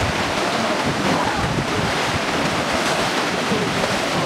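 Whitewater rapids rushing and splashing around rocks and past a river boat, a steady loud rush, with wind buffeting the microphone.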